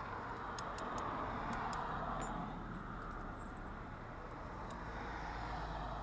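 Road traffic passing, a rushing hum that swells and fades twice. A few light clicks of small lock cylinder parts being handled in the first couple of seconds.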